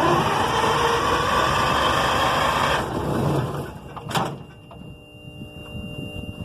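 Detroit Diesel 6V92 two-stroke diesel engine cranking on its starter for about three seconds, then stopping, with a sharp click about four seconds in. It is a no-start that the owner suspects comes from lost fuel prime.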